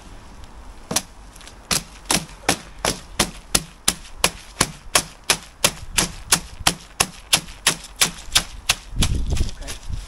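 Timber tamping board chopping down on a freshly poured concrete slab, about three sharp strikes a second in a steady rhythm, compacting and levelling the wet concrete.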